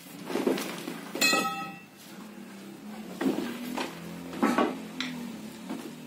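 Iron bar knocking and prying at wooden shuttering planks under a slab, with loose soil and planks clattering down in a series of separate knocks. About a second in, one strike rings out as a short metallic clang.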